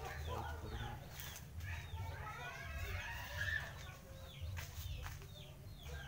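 Chickens clucking, with many short falling chirps repeating throughout, over a steady low rumble.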